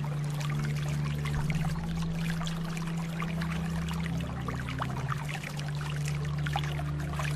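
Water trickling and splashing in a steady stream, full of small drips and splashes. Under it runs soft, slow music: long held low notes that shift every second or two.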